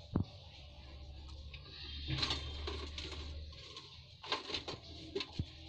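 Faint kitchen handling noises: a sharp click at the start, rustling about two and four seconds in, and two short clicks near the end, over a low steady hum.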